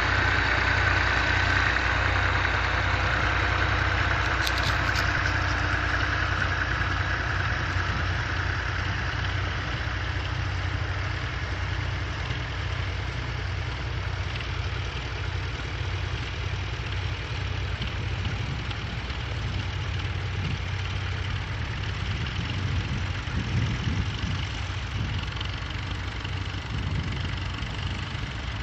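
Ferguson TEF-20 tractor's four-cylinder diesel engine running steadily under load while ploughing, growing a little quieter as it goes.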